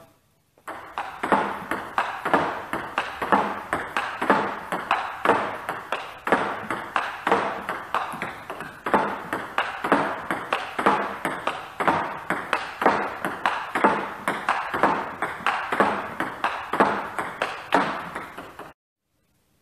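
Table tennis ball in a fast backhand topspin rally against a rebound board, clicking off the bat, the table and the board several times a second in an even rhythm. The clicks stop suddenly near the end.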